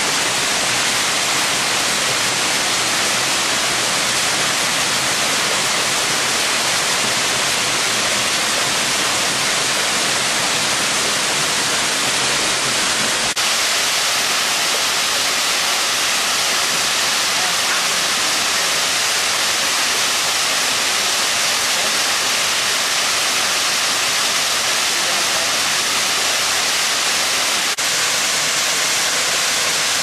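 Waterfall: water pouring over tiered rock ledges into a pool, a steady loud rush of water. The rush shifts slightly in tone about 13 seconds in.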